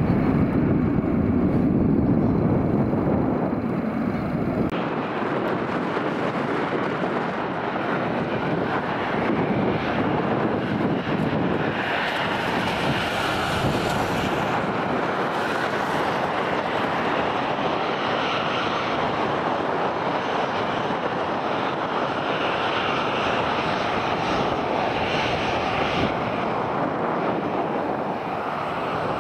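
Airliner's engines running at high power as it departs, a steady dense noise; a heavy low rumble drops away abruptly about five seconds in.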